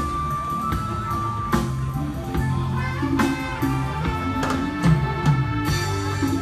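A live band plays through a large PA system during a sound check, picked up by the camera's microphone. A drum kit keeps time under a bass line and held lead notes.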